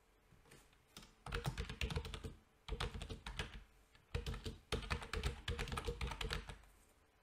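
Typing on a computer keyboard: quick runs of key clicks starting about a second in, broken by short pauses, stopping just before the end.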